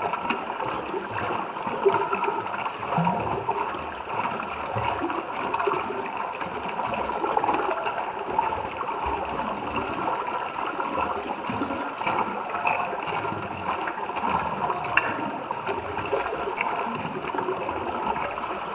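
Running water bubbling and gurgling steadily, a small stream's flow with many quick little splashes.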